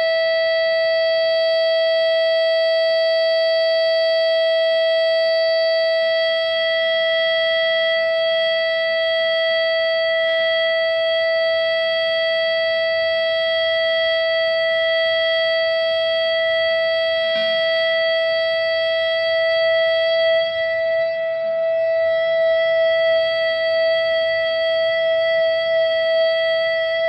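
1970 Gibson Les Paul Custom electric guitar through a distorted amp-simulator rig, holding one high note with long, unbroken sustain. The note wavers slightly in level near the end.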